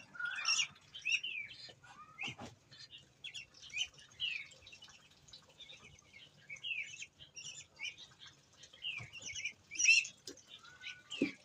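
Birds chirping: many short, high, falling chirps one after another, with a few soft knocks.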